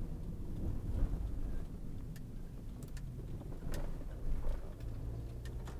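Car interior noise while driving: a steady low rumble of engine and tyres on the road, with a few faint clicks and rattles.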